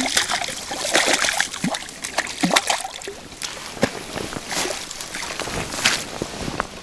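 Water splashing and sloshing in irregular bursts: a hooked crucian carp thrashing at the surface as it is played in on a float rod.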